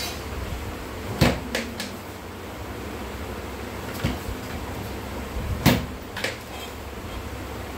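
A few sharp plastic knocks and clatters from a toddler's plastic ride-on toy motorbike being bumped and jostled, two loud ones about a second in and near six seconds, with smaller ones after each.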